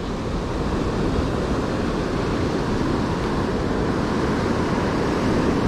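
Steady sea surf with wind rumbling on the microphone, an even noise with no distinct events.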